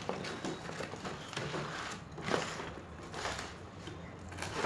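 Cardboard box and packaging being opened and handled: irregular rustling and scraping with a few sharp knocks, the loudest about two seconds in and near the end.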